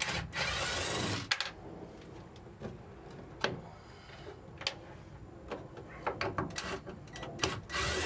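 Wooden cabinet shelf pieces being handled and worked loose by hand: a drawn-out scrape of wood rubbing on wood, then scattered knocks and clicks, and another scrape near the end.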